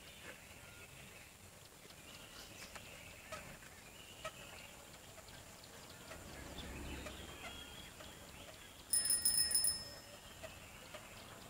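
Faint bird calls, then about nine seconds in a chrome dome bicycle bell on an old roadster bicycle is rung in a quick rattling trill lasting under a second, the loudest sound here.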